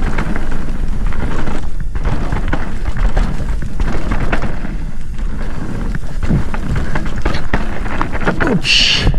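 Mountain bike riding fast down a dirt trail: constant wind rumble on the camera's microphone with knocks and rattles from the bike over bumps, and a brief high-pitched squeal near the end.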